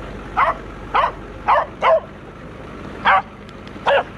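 Hunting dog barking six times in short barks at irregular intervals, baying at a dead wild hog.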